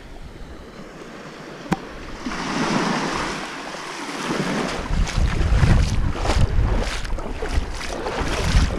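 Small waves lapping and washing up onto a sand and pebble shore. From about halfway through, wind buffets the microphone with a low rumble. There is a single sharp click a couple of seconds in.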